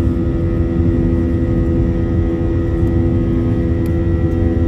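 Airliner's jet engines heard from inside the passenger cabin as the plane rolls on the ground: a steady hum and whine over a low rumble, holding an even pitch and level.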